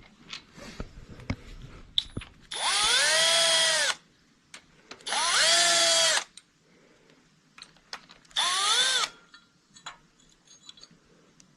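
Electric power tool of the drill or impact-gun kind run in three bursts, its motor whining up in pitch and winding down each time, the third burst shorter. Light clicks and clinks of metal tools come between the bursts.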